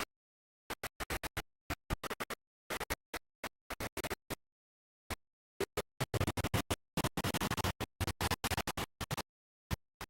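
Scratch-style electronic music made of short stuttering bursts cut off sharply into dead silence, sparse at first and coming thick and fast in the second half.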